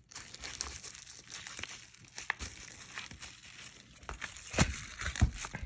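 Plastic wrapping crinkling and crackling as it is pulled off a small boxed device, with two louder sharp snaps near the end.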